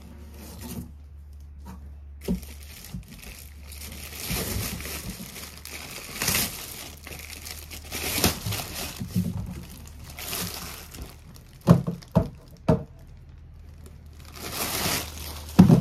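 Plastic wrapping crinkling and rustling as a packed airbed is handled and pulled about in its cardboard box. There are a few sharp knocks in the second half, the loudest near the end.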